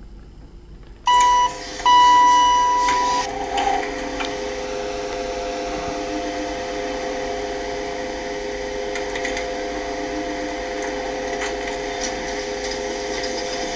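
Two electronic beeps of the same pitch, a short one and then one lasting about a second, followed by a steady mechanical hum of service lift machinery with a few steady droning tones.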